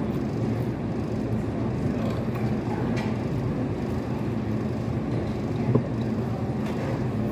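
Steady background hum and murmur of a restaurant dining room, with one sharp clink about six seconds in.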